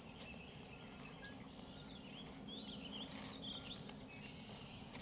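Quiet marsh ambience: a steady high insect buzz, with birds chirping in short calls around the middle.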